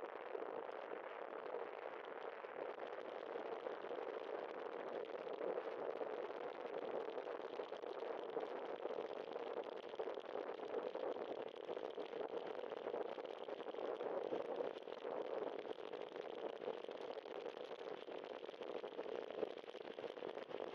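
Steady hissing, crackling road noise of bicycle tyres rolling on wet pavement.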